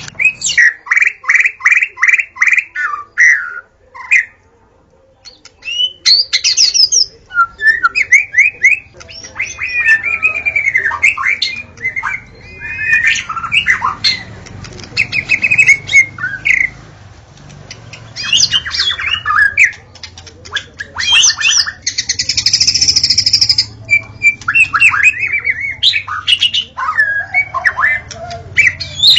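Wild white-rumped shama singing: a fast, varied run of loud whistles, trills and rapidly repeated notes. Near the end comes a harsh rasping burst, then more whistles.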